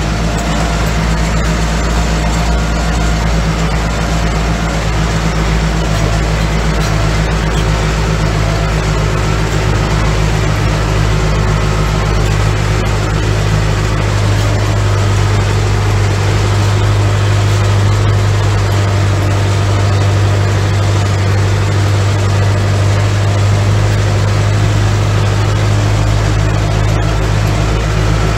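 Ursus tractor's diesel engine running steadily under load while it tows a trailer that is spreading lime. The drone grows a little louder about halfway through.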